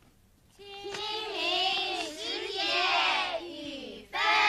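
A group of children's voices reciting together in unison in a sing-song rise and fall, starting about half a second in.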